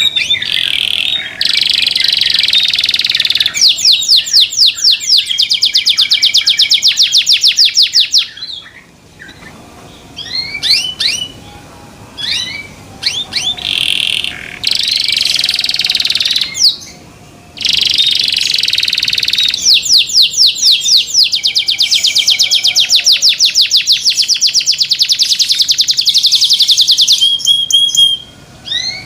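Domestic canary singing loudly in long phrases. Trilled passages alternate with stretches of fast, evenly repeated notes, broken by a few short pauses.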